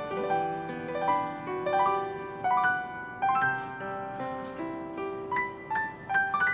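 Background piano music: a gentle melody of single notes, each struck and fading, over held lower notes.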